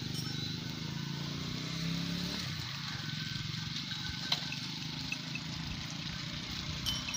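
A low engine hum that fades out after about two and a half seconds, with a single sharp click near the middle.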